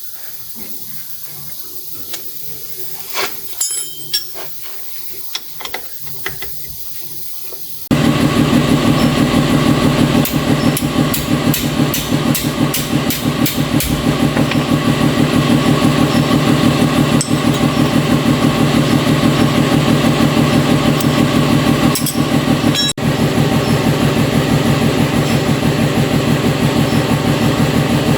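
Light clinking of metal tools, then about eight seconds in a loud engine starts running steadily with a fast, even pulse.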